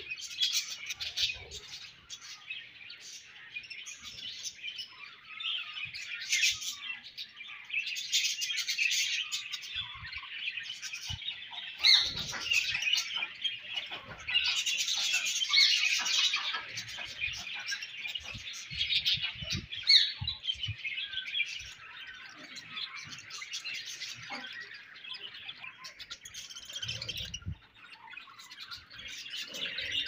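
A colony of budgerigars chirping and warbling together in a continuous busy chatter of overlapping high calls, louder in stretches now and then.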